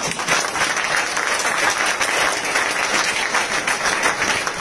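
Audience in a hall applauding: many hands clapping at once, a dense steady patter.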